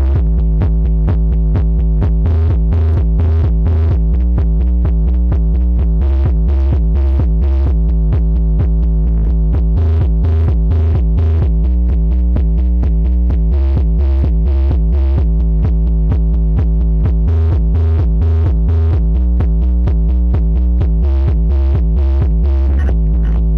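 Electronic dance music played very loud through a huge stacked sound system of about 24 subwoofers, with heavy bass and a steady beat.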